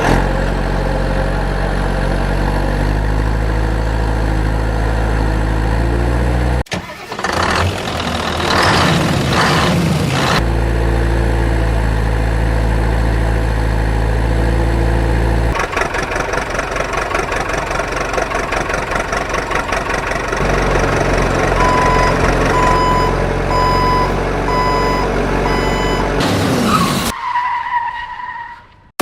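Heavy construction machinery engines running, the engine note changing pitch several times as they rev up and down. A series of short, evenly spaced beeps sounds for several seconds in the later part.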